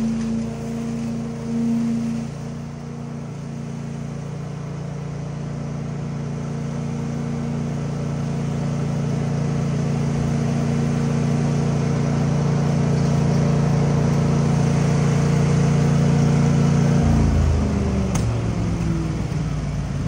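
Leaf vacuum engine running steadily at high speed, then throttled down about seventeen seconds in, its pitch falling as it settles to a lower idle. A short sharp click comes about a second later.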